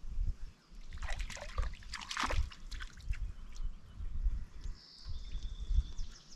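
Water splashing and sloshing for a second or so, about a second in, over a steady low wind rumble on the microphone; a few short high chirps near the end.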